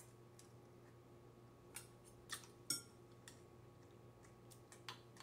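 Spoon and chopsticks clinking against a bowl of seafood stew: a few light, separate clinks, the loudest about two and a half seconds in, over a faint steady hum.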